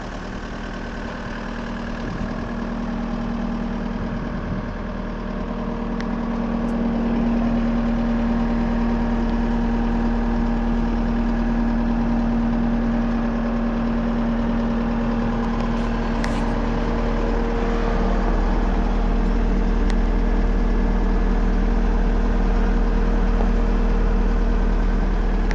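Case SV250 skid steer's diesel engine running at a steady speed, getting somewhat louder about seven seconds in, with a few light clicks.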